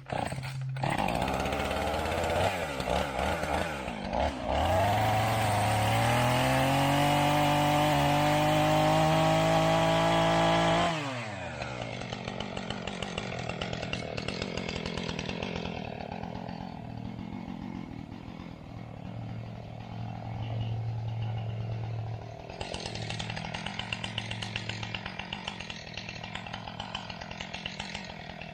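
Husqvarna two-stroke chainsaw revving up and held at high speed, its pitch rising and then steady, before dropping back sharply to idle about eleven seconds in; it then idles at a lower level, with a renewed rise near the end.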